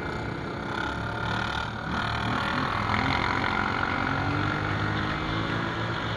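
ATV (quad bike) engine running, heard from the machine carrying the camera, its pitch rising several times as it accelerates.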